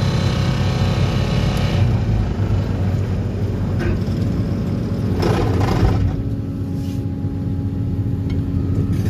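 Excavator carrying a vibro hammer for sheet piling, its heavy diesel engine and hydraulics running steadily. A steady hum joins in a little after four seconds in.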